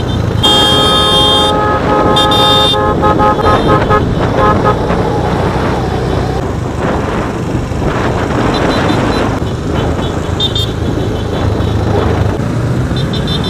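Motorcycle and scooter horns honking in several long and short blasts during the first few seconds, with a couple of short honks later, over motorcycle engines running in a slow-moving parade and road noise.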